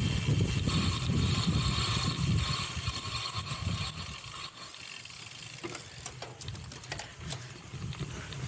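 Cyclocross bike's rear freehub ratcheting as the rider coasts, over the rumble of tyres and wind that drops away about halfway through. Scattered sharp clicks and knocks from the bike follow in the second half.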